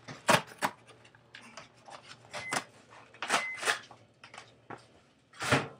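Cardboard food box being torn up by hand: a series of short ripping and rustling noises, the loudest near the end.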